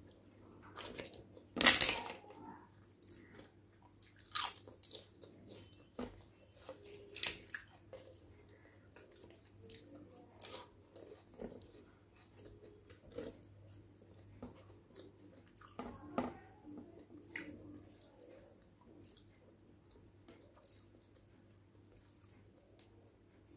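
Close-miked mouth sounds of a person eating by hand: chewing with a scatter of sharp crunches from biting papad, the loudest about two seconds in.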